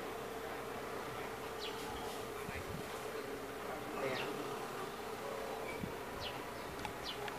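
A JCB backhoe loader's diesel engine heard at a distance as a steady, faint buzzing drone, with a few brief high chirps over it.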